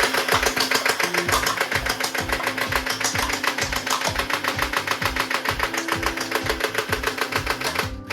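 Electric toy gun firing on full auto, a fast mechanical clicking of about ten shots a second that breaks off right at the end, over background music with a steady beat.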